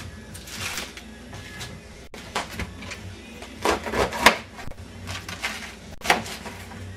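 Leaves of a raw cabbage head being ripped off by hand, several separate tearing sounds, the loudest about four seconds in.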